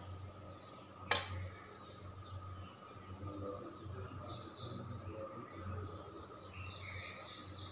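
A single sharp click about a second in, over a steady low hum, with faint high chirping further on.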